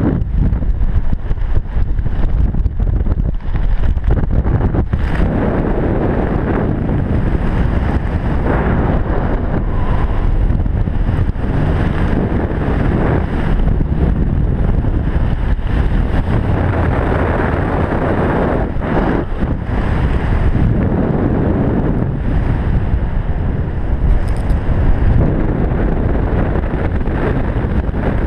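Wind rushing and buffeting over the jumper-mounted camera's microphone during a parachute descent under an open canopy: a loud, steady, gusty noise.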